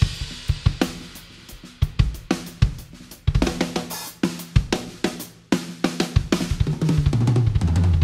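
Acoustic drum kit played with sticks in a busy funk groove: snare, bass drum, hi-hat and cymbals in quick strokes. It plays softer for the first few seconds, then jumps louder just after three seconds in.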